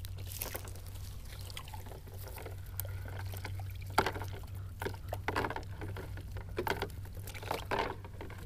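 Water pouring and dripping off a wet cast net as it is shaken out and gathered, with a handful of short sharp splashes and knocks in the second half, the loudest about four seconds in, over a steady low hum.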